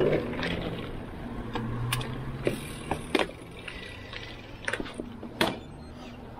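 Bicycle rolling slowly over pavement, with sharp, irregular clicks and rattles from the bike, the loudest about three seconds in and again near the end. A low rumble fades away in the first second.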